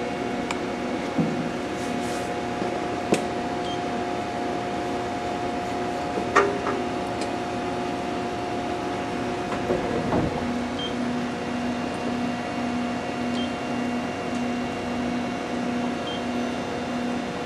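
Steady hum of a running machine-shop machine tool, with a few light clicks. About ten seconds in, a low tone starts pulsing on and off.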